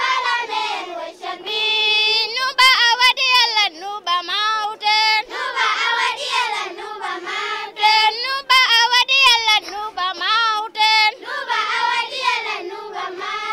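Children singing together: a melodic line that rises and falls, over a steadier lower sung pitch.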